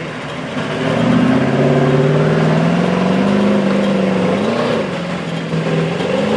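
Mercedes-Benz G-Class diesel engine pulling hard under load as the 4x4 climbs a steep dirt slope. It grows louder about a second in and rises slowly in pitch, with a brief surge and dip partway through.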